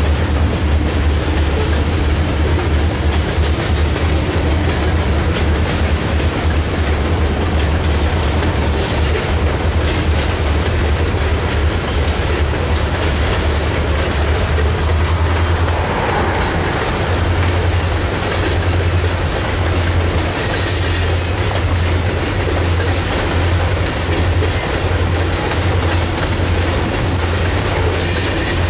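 Loaded covered hopper cars of a freight train rolling steadily past, with a continuous heavy rumble of steel wheels on rail and a deep low drone. Brief high wheel squeals break through now and then; the longest comes about twenty seconds in.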